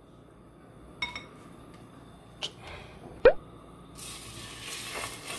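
A few sharp clinks of wooden chopsticks against a ceramic bowl as slices of beef are dipped in beaten egg. About four seconds in, the egg-battered beef hits a hot frying pan and starts sizzling steadily.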